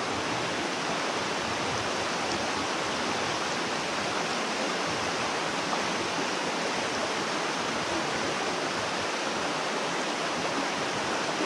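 Steady rush of a mountain stream cascading over a rock ledge.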